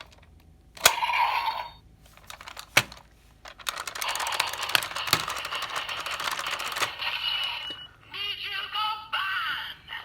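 DX Zenkai buckle toy belt with the Zenkai Gaon gear loaded, playing its electronic transformation sounds through its small speaker: sharp plastic clicks, a short electronic sound, then a rapid-fire run for about three seconds, and toy voice and music near the end.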